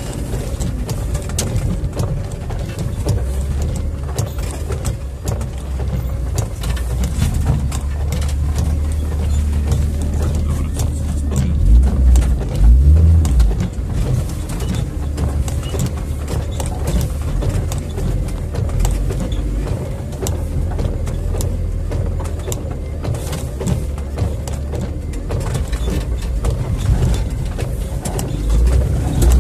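Jeep Wrangler's engine running at low speed as the vehicle crawls over a rutted, muddy, snowy track, heard from inside the cab, with a few heavy thumps about twelve seconds in as it lurches over the ruts.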